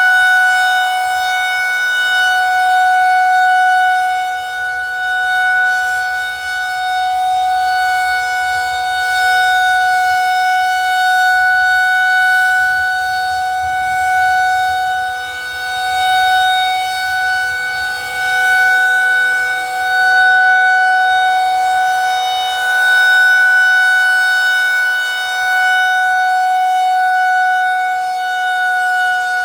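Federal Signal 2001-130 rotating electromechanical tornado siren sounding a test at full speed, holding one steady note. The note swells and fades every few seconds as the rotating horn sweeps past.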